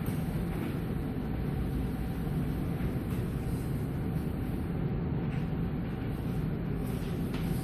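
Steady low hum of running machinery, with a faint steady whine and a few soft clicks.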